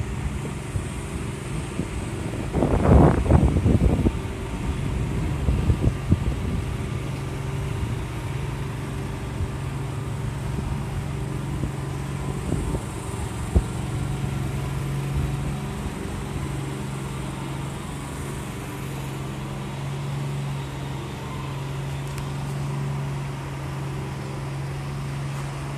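Steady low motor hum of outdoor urban background, with a louder rumble lasting about a second around three seconds in.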